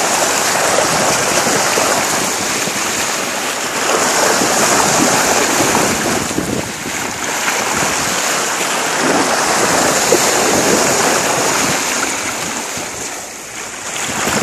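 Bow wave of a sailboat under way, water rushing and splashing steadily along the hull, with wind on the phone's microphone. The rush eases briefly about two-thirds of the way through and again near the end.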